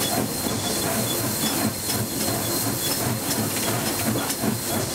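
Steam locomotive heard from inside its cab: a steady hiss of steam over the noise of the running engine.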